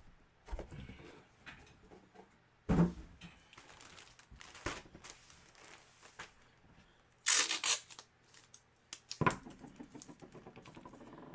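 Empty cardboard box and its packing being handled: a few knocks against the table and a short, loud tearing rustle about seven seconds in.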